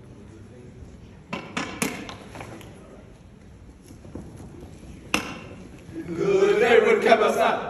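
A quick cluster of four or so sharp wooden knocks, one more sharp knock a few seconds later, then loud male voices start shouting about three-quarters of the way through.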